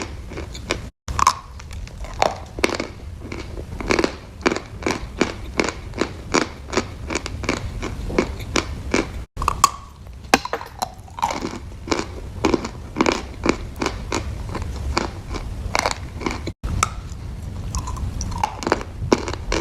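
A person chewing crunchy food close to the microphone: a dense, irregular run of crisp crunches, a few a second, broken three times by a split-second dropout.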